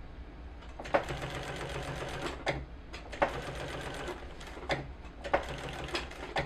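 Sewing machine stitching in three short runs, each starting and stopping with a sharp click.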